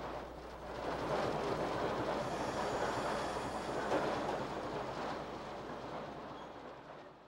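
ALCO diesel switcher locomotive hauling a train of lumber cars: a steady low engine drone under the rumble of wheels on the rails. It fades out near the end.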